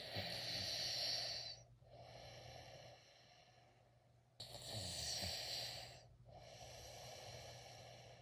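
A person snoring: two long snores about four seconds apart, the second starting suddenly, each followed by a quieter breath.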